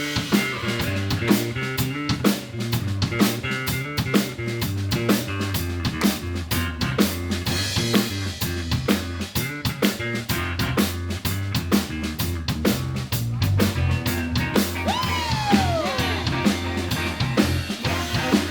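Live funk band: an electric bass playing a featured solo line over a steady drum kit groove with snare and kick.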